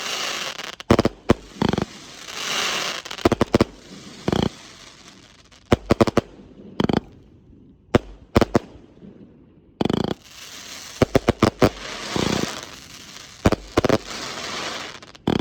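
Multi-shot firework cake (a 341-shot cake) firing: clusters of sharp bangs in quick succession, with stretches of crackling hiss between them and short pauses between volleys.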